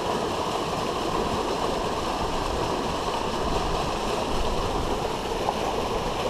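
Steady rush of a river's flowing current.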